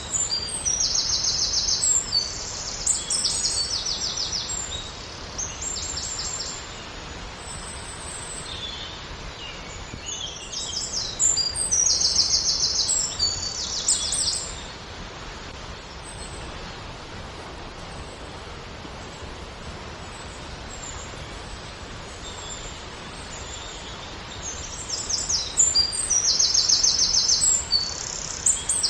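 Steady rush of a waterfall, with birds singing high, rapid trilling phrases over it in three spells: near the start, in the middle and near the end.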